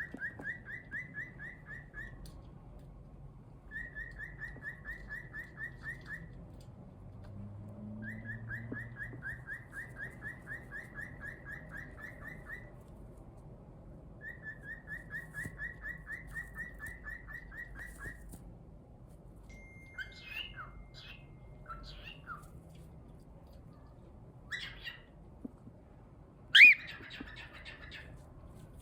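Cockatiel calling in runs of quick repeated chirps, about six a second, four runs over the first two-thirds, then a few scattered chirps and one loud, sharp call near the end.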